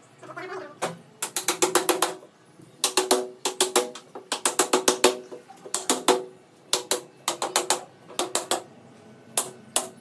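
Metal pliers tapping a plastic corner joint down onto an aluminium rod of a clothes rack. The taps come in quick bursts of several a second, each with a short ring.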